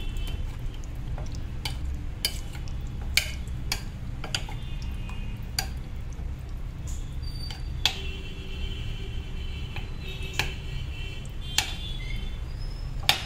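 Metal spoon stirring chicken pieces through thick yogurt marinade in a glass bowl, clinking irregularly against the glass about once a second, over a steady low hum.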